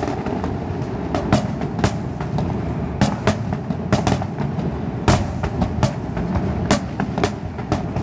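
Fireworks going off: irregular sharp bangs and crackles, several a second at times, over a continuous rumble of distant bursts.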